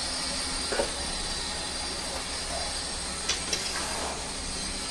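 Chicken and masala cooking in a kadhai over a high gas flame, a steady hiss, with a few knocks of the spoon against the pan as the pot is stirred.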